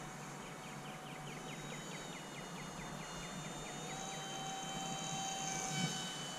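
Faint, steady whine of a small RC paramotor's battery-powered electric motor and propeller in flight overhead, its pitch stepping up about two seconds in and again about four seconds in as the throttle changes.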